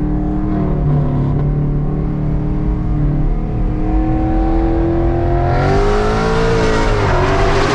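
Ford Mustang engine with headers, catless, on the stock active exhaust, heard from inside the cabin: steady part-throttle running in second gear, revs climbing from about halfway, then a hard pull with a loud, high-pitched exhaust rising in pitch, which dips briefly near the end.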